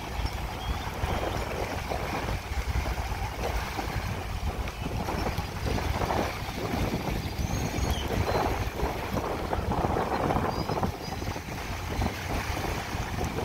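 Small waves lapping and washing up onto a sandy lake shore, the wash swelling and fading every second or two, with wind rumbling on the microphone.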